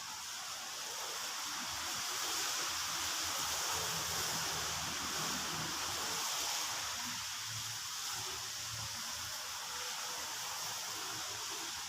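Steady hissing noise with a faint low hum underneath.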